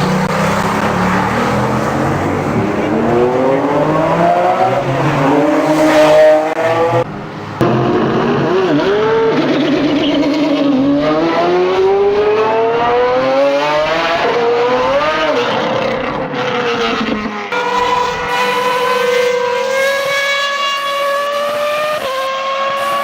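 Race-car engine sound effects, revving and climbing in pitch, dropping back and climbing again as if shifting up through the gears. There is a short break about seven seconds in.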